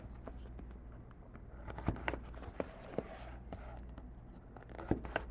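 Faint, irregular light clicks and rustles of trading cards and their packaging being handled, over a steady low hum.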